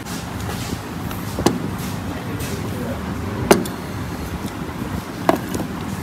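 Steady low background rumble with three sharp clinks of dishes, about a second and a half, three and a half and five seconds in; the middle one is the loudest.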